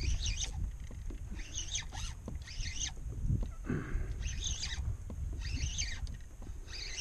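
Wind rumbling on the microphone and water lapping at a kayak, with a marsh bird giving short, high, wavering chirping calls about every second or so.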